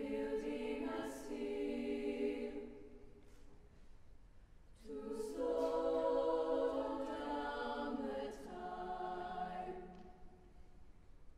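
Mixed choir singing a cappella in held chords: a first phrase, a pause of about two seconds, then a longer, fuller phrase that settles onto a lower chord and fades near the end.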